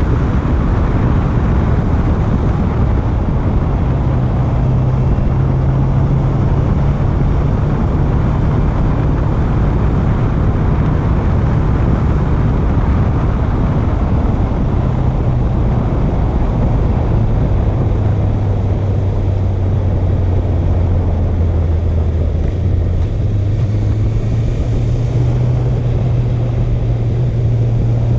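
Honda CB650F's inline-four engine running while riding, heard under a loud, steady rush of wind on the microphone. The engine note holds steady, drops lower for several seconds past the middle, then steps back up near the end.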